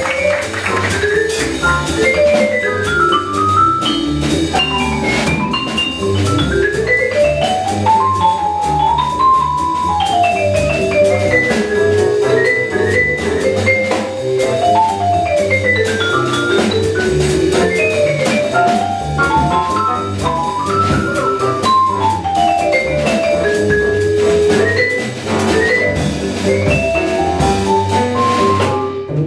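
Vibraphone soloing in quick runs of notes that climb and fall, over a jazz rhythm section of upright bass and drum kit with cymbals.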